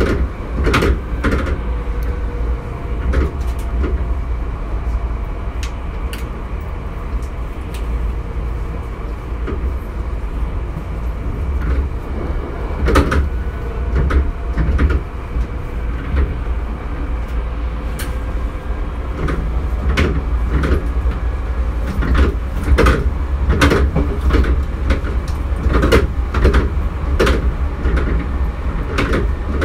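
Hankyu 3300-series electric commuter train running at speed, heard from inside a car: a steady low rumble from the wheels on the rails with frequent sharp clacks and rattles, clustering more thickly in the second half.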